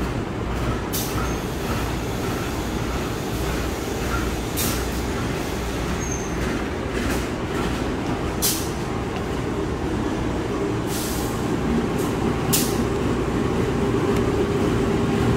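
Retired Tokyo Metro 5000 series electric train cars, unpowered and hauled by a locomotive, rolling slowly past with a steady rumble of wheels on rails. Several short hisses come and go.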